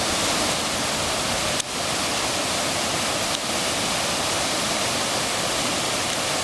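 Waterfall and a river running high with snowmelt: a steady, loud rush of falling water, with a short click and momentary drop about one and a half seconds in.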